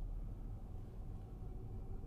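Low steady rumble of a 2006 Subaru Legacy GT heard from inside the cabin, with a faint steady whine over it: a drivetrain noise that the driver takes for a dying manual transmission, suspecting the clutch or an input-shaft bearing.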